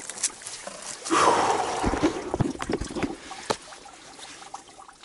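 Water splashing and trickling close to the microphone, with sharp knocks and rustles of handling, loudest in the first few seconds and fading toward the end.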